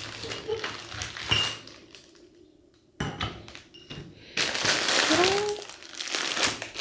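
Small glass jars and bottles clinking and knocking together while cellophane and plastic food wrappers rustle and crinkle, as hands sort through a wicker basket of packaged snacks; the crinkling is loudest in the second half.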